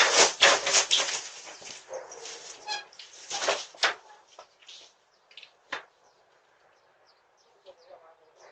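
A dog barking in a run of sharp, repeated barks over the first four seconds, then only faint scattered clicks, picked up by a video doorbell's microphone.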